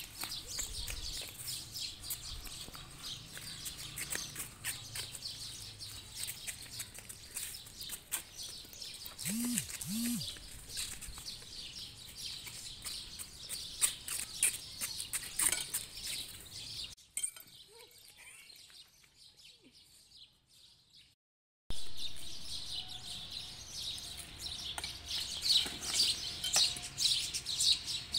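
Birds chirping in a dense, continuous chorus of many short high chirps. Past the middle the sound fades almost to nothing for a few seconds, then the chirping cuts back in suddenly.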